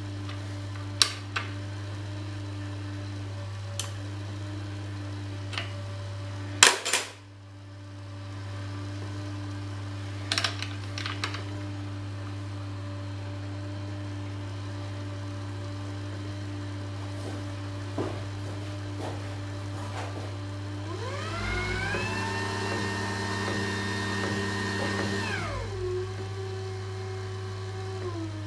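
Electric gear motor of a homemade milling-machine table power feed whining up in pitch about 21 seconds in, running steadily for a few seconds and winding back down, over a steady electrical hum. Earlier, a few sharp clicks and knocks of the unit being handled, the loudest about seven seconds in.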